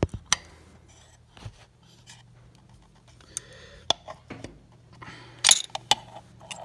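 Scattered metallic clicks and scrapes of a wrench turning the tappet adjusting screw of an Onan B48G flathead engine a quarter turn to set valve lash. The loudest cluster of clicks comes about five and a half seconds in.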